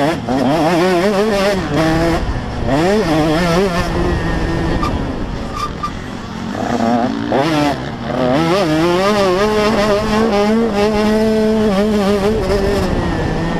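Motocross bike engine revving hard as the bike is ridden round a dirt track, heard from an onboard camera: the engine note climbs, drops back at gear changes, wavers over the bumps and holds steady for a few seconds in the second half, over a low rumble of wind on the microphone.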